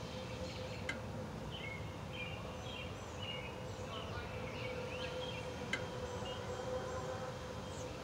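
Faint, high, short bird chirps scattered over a steady outdoor background hiss and low hum, with two sharp clicks, one about a second in and one near six seconds.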